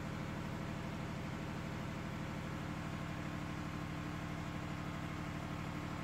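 Steady engine hum at a constant speed, with a fast, even pulse and no change in pitch.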